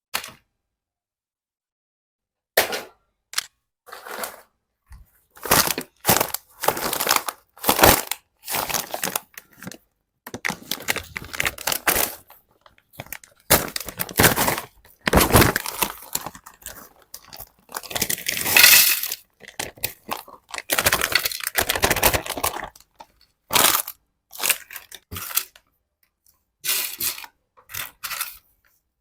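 Crunchy snack chips and their plastic packet being handled, with irregular bursts of sharp crackling, snapping and crinkling.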